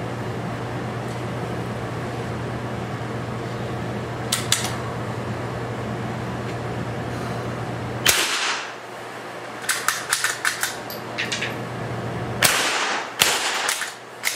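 Two rifle shots echoing in a small indoor range, about eight seconds in and again near the end, with a run of sharp mechanical clicks between them, like a rifle bolt being worked. A steady low hum runs under the first half.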